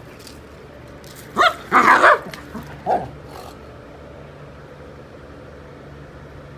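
A dog barking in play: a quick cluster of barks a little over a second in, then one shorter bark about a second later.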